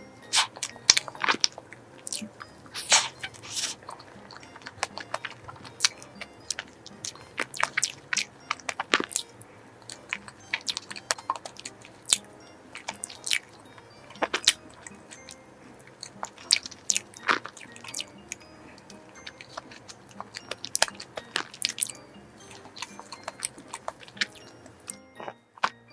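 Close-miked eating sounds of creamy strawberry cake: irregular chewing, biting and wet mouth clicks, over quiet background music.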